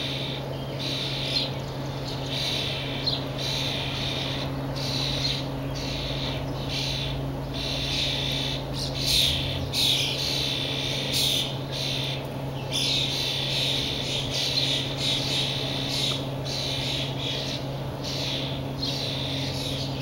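European starlings calling noisily: harsh, raspy squawks repeated over and over, some short and some drawn out for a couple of seconds.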